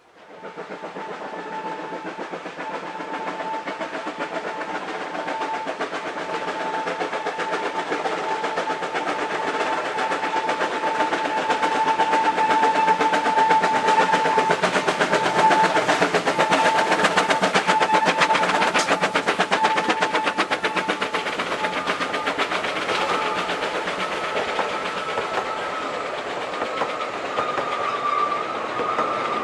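Two Vale of Rheidol 2-6-2T narrow-gauge steam tank locomotives working hard up a grade at the head of a train. Their rapid exhaust beats grow louder as they draw near and pass, then the coaches and wagons roll by. A steady high-pitched tone runs over the sound for much of the time.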